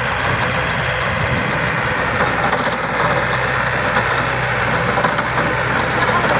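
Yanmar four-wheel-drive tractor's diesel engine running steadily while working a rear rotary tiller through the soil.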